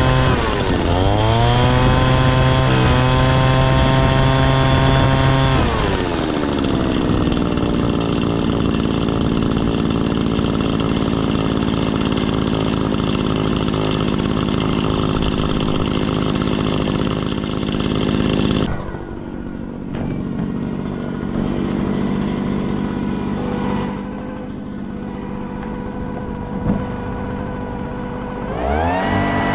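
Echo PB-400E backpack blower's small two-stroke engine running at high throttle, dipping and recovering briefly about a second in. It drops to a lower, steady idle at about six seconds, then revs back up near the end. The engine is being test-run after repairs to its choke lever and pulse line.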